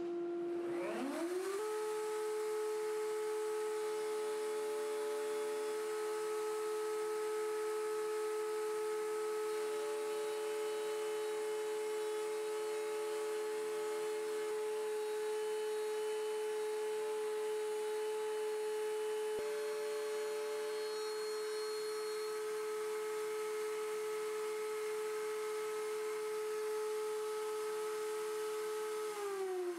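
A table-mounted router motor is switched on, with a rising whine as it comes up to speed over about a second and a half. It then runs at a steady pitch and starts to wind down, its pitch falling, right at the end.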